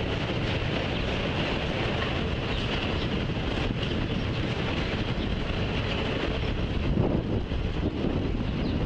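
Freight train of autorack cars rolling past: a steady noise of wheels running on the rails, swelling slightly about seven seconds in.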